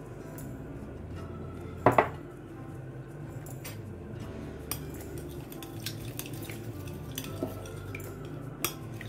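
An egg cracked against the rim of a glass mixing bowl, two sharp knocks about two seconds in, then a spoon beating eggs in the bowl, clinking lightly and irregularly against the glass.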